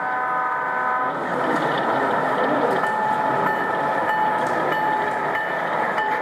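Sound-equipped model diesel locomotive: a multi-note chime horn that cuts off about a second in, then diesel running sound with a steady high whine from about three seconds in.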